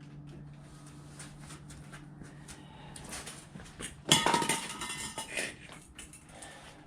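A faint steady hum, then about four seconds in a sudden loud metallic clatter with a brief ringing, fading over about a second and a half.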